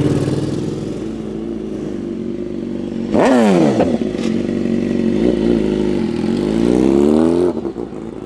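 Vehicle engines running as vehicles pull away. About three seconds in, one is revved sharply and its pitch falls back. Then an engine's pitch climbs steadily under acceleration and cuts off suddenly near the end.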